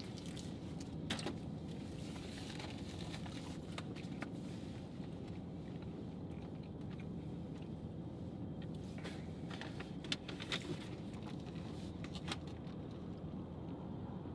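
Paper fast-food wrappers and a paper bag being handled, giving scattered soft crinkles and clicks, a couple of them sharper about ten seconds in, over a steady low rumble inside a car cabin.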